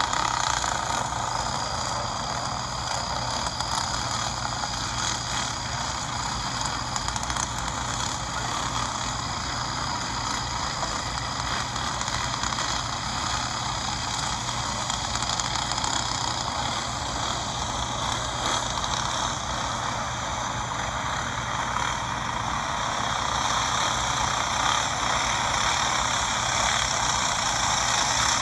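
A pack of racing go-kart engines running hard around a dirt oval as one continuous buzzing drone, heard as a video played back through a phone's speaker. It grows somewhat louder over the last part.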